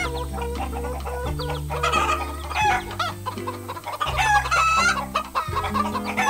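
Hens clucking in short repeated calls, with a rooster crowing about four seconds in, over background music of held low notes.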